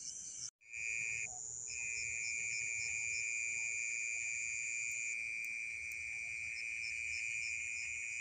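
Night insects trilling: a steady high-pitched tone with a fainter, higher one above it, the lower tone breaking off briefly about a second in.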